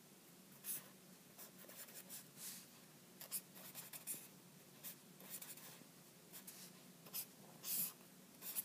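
Pen drawing on paper: a run of short scratchy strokes with brief pauses between them, and a longer, louder stroke near the end.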